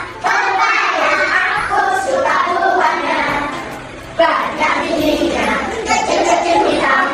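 A group of children singing together in phrases, with a short pause a little past the middle.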